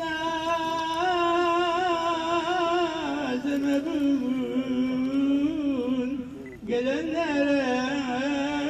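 A single voice chanting in long, wavering melismatic phrases, with a short breath about six and a half seconds in.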